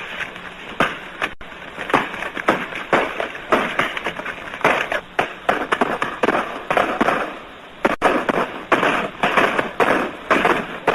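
Rifle fire in a battle scene: many shots in quick, irregular succession, heard on an early sound-film track that is dull and lacks treble.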